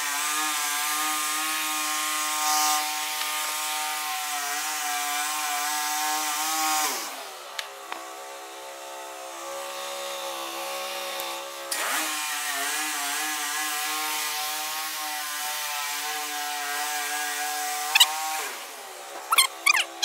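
Wood-Mizer portable band sawmill running at speed, its engine-driven band blade sawing through a log. The machine slows and quiets about 7 seconds in, speeds up again about 12 seconds in and slows once more near the end, where there are a few sharp knocks.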